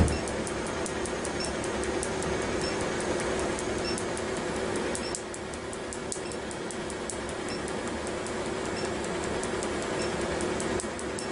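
Tattoo-removal laser firing a rapid string of pulses into the tattooed skin, each pulse a sharp snap, about four a second, over a steady hum and hiss from the equipment.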